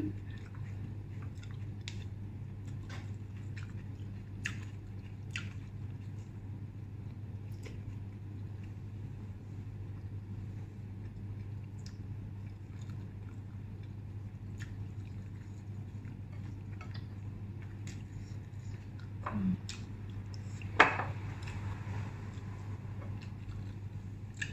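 A person eating instant noodles with wooden chopsticks: quiet chewing with scattered small clicks, over a steady low hum. There is a brief short voice sound, then a sharp clink about three-quarters of the way through.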